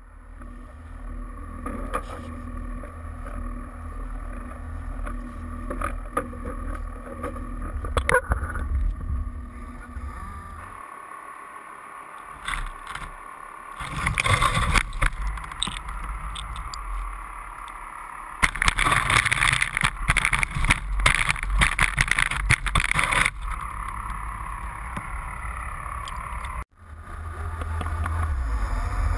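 Lobster boat's engine and hydraulic trap hauler running with a steady low rumble as the trap line is hauled up. In the middle come long stretches of loud rushing noise. The sound cuts out suddenly near the end and the rumble comes back.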